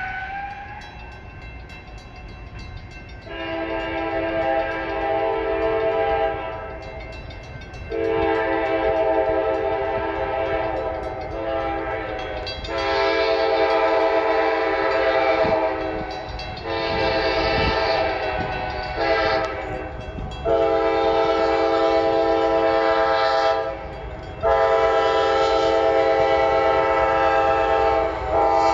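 Approaching locomotive's air horn sounding a series of long blasts with short gaps, several tones at once, over a low rumble, getting a little louder as the train nears.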